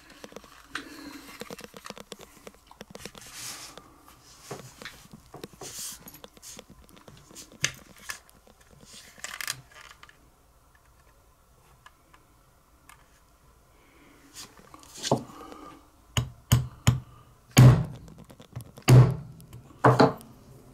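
Hole punch being struck to cut a small washer out: a run of sharp knocks with a low thud over the last five seconds, the loudest near the end. Before that, light clicks and handling of small parts.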